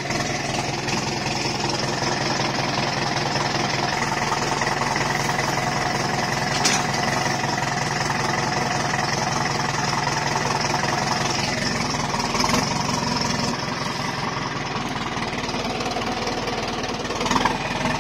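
Mahindra Arjun tractor's diesel engine running steadily just after starting, at a low even speed, a little quieter for the last few seconds.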